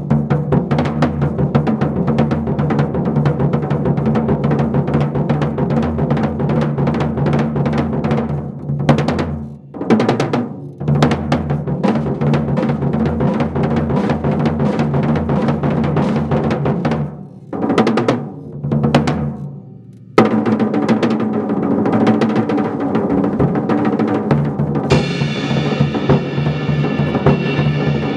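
Solo drumming on a 1965 Slingerland drum kit: fast rolls and strokes on snare and toms over the bass drum. Twice the stream breaks off into a few sparse accented hits. Near the end a cymbal rings out over the drumming.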